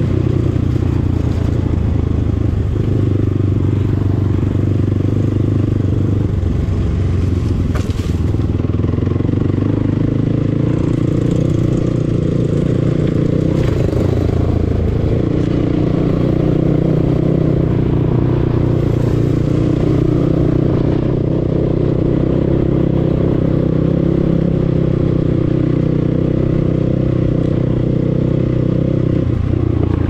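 Enduro dirt bike engine running steadily under light throttle while riding a rough forest trail, its pitch shifting a little with the throttle. A single sharp knock comes about eight seconds in.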